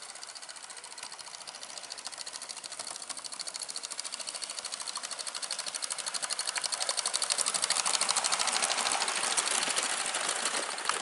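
Gauge 1 model train running on a garden railway, making a fast, even rhythmic clatter. It grows steadily louder as the train approaches and passes close by.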